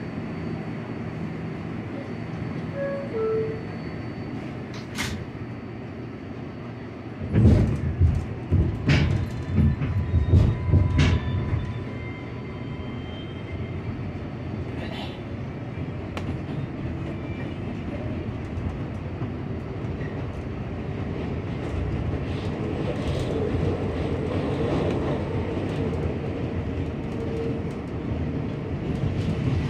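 NYC Subway 7 train pulling out of an elevated station and picking up speed, heard from inside the car. A steady low rumble, then several seconds of loud, irregular clattering from the wheels on the track, then steady running noise that grows louder, with a steady tone coming in near the end.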